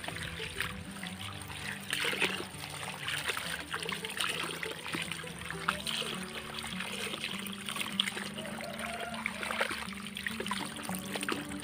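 Water pouring from a hose onto vegetables in a woven bamboo basket, splashing and trickling into the plastic basin below, with frequent small splashes as hands rub and rinse lettuce and green chillies.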